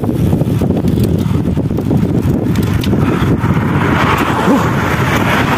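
Wind rushing over the microphone of a camera on a moving road bike: a steady low rumble, with a hiss of road noise swelling from about three seconds in.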